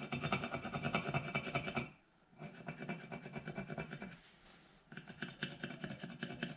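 Pencil rubbed rapidly back and forth over masking tape stuck on a car hubcap badge, taking a rubbing to bring out the badge's outline for cutting. The strokes pause briefly about two seconds in and again about four seconds in.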